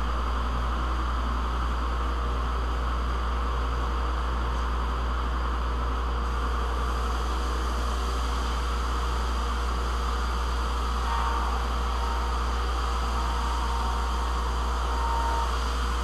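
Three-phase 25-inch wide belt sander running steadily with its dust collection air rushing through the return air filters: a constant low hum under a broad rushing noise, with a faint whine coming and going in the second half.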